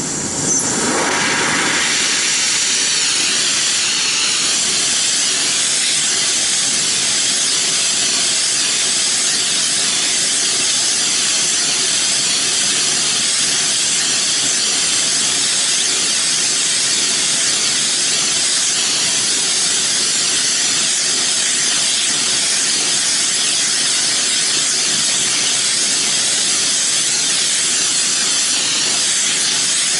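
A loud, steady hiss of escaping gas that starts abruptly.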